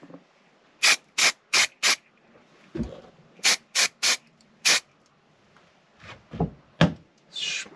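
Aerosol can of cold galvanising (zinc) spray squirted in short bursts onto the end of a freshly cut, still-hot steel bar: two runs of four quick hisses, a few knocks between them, and a longer hiss near the end.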